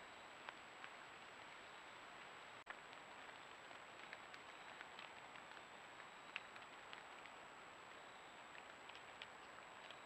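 Near silence from a trail camera's microphone: a steady faint hiss with a thin high electronic tone, and scattered faint ticks at irregular intervals.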